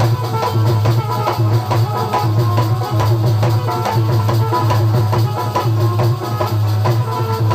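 Instrumental break of Bundeli rai folk music: fast, even drumming with shaken rattles over a sustained low drone.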